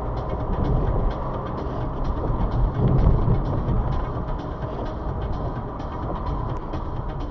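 A car driving in heavy rain, heard from inside: a steady low road and engine rumble, with many small ticks of raindrops striking the car. The rumble swells briefly about three seconds in.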